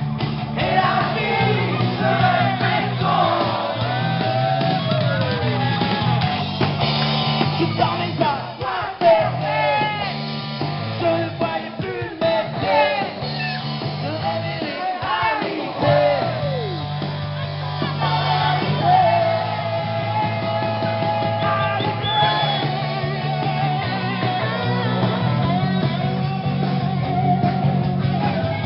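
Live rock band: a woman sings lead into a microphone over electric guitar and bass. Her sung lines slide up and down in pitch through the first half, then turn to longer held notes over the steady band.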